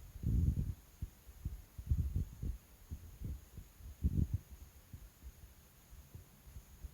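Irregular soft, low thuds and bumps, the heaviest about half a second in and again around four seconds in.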